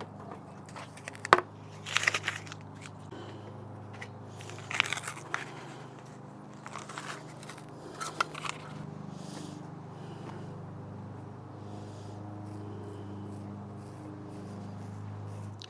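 Refrigerated pizza-crust dough can being opened and its cardboard-and-foil wrapper peeled off the dough: a sharp snap about a second in, then scattered bursts of crinkling and tearing, over a steady low hum.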